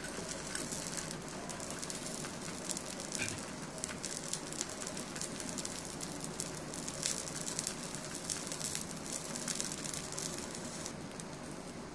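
Ghee sizzling under a bread sandwich toasting in a non-stick frying pan: a soft, steady crackle.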